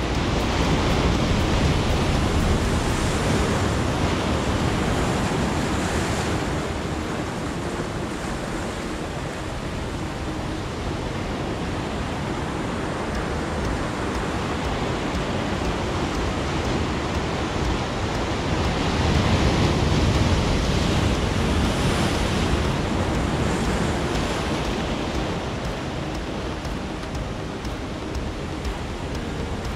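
Heavy swell breaking on a rocky shore: a steady wash of surf that rises in two big surges, one a second or two in and another about two-thirds of the way through.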